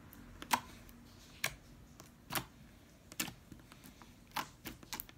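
Slime being squeezed and kneaded by hand, giving sharp popping clicks from trapped air, the loudest about once a second with fainter ones between.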